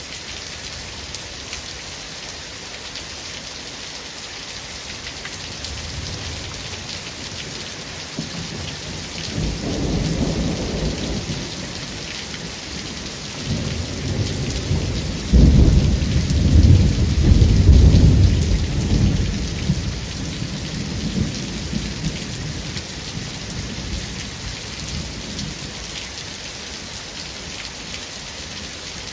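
Steady rain falling, with a roll of thunder that builds for several seconds, breaks into a loud clap about halfway through, and then rumbles away, leaving the rain alone near the end.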